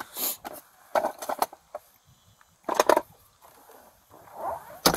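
Things being rummaged through and handled in a pickup truck's open centre console: a few short bouts of rustling and scraping, then a sharp click near the end.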